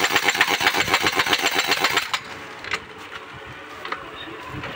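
Air impact wrench rapidly hammering on a truck wheel nut, tightening it, for about two seconds, then stopping.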